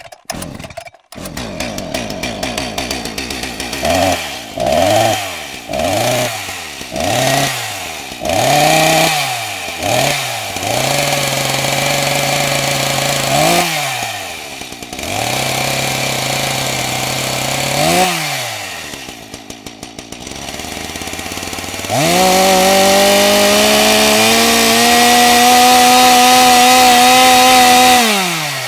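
Chainsaw engine catching about a second in, then blipped up and down about once a second, held at a steady higher speed, dropped back to a lower idle, and run up to a high, loud steady speed for the last six seconds or so.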